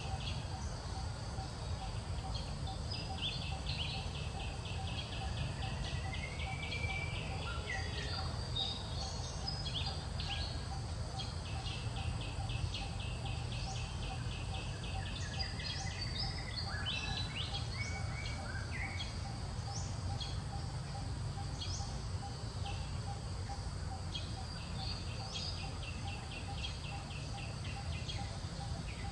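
Outdoor ambience of birds and insects: long runs of rapid, evenly repeated chirps come and go, with a few short rising whistles, over a steady low rumble.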